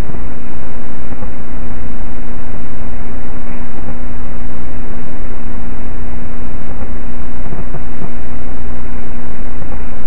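Loud steady electronic static hiss with a constant low hum and a steady faint tone underneath, unchanging throughout.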